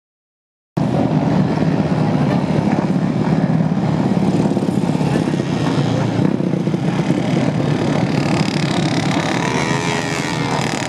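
Several racing kart engines running together on the starting grid, loud and steady, cutting in suddenly about a second in. Near the end, rising and falling pitch from engines being revved.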